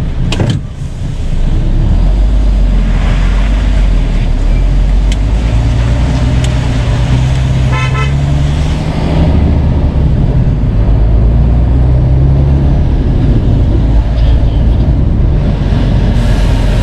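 Lorry's diesel engine pulling away, its pitch rising twice as it works up through the gears, with a short horn toot about eight seconds in.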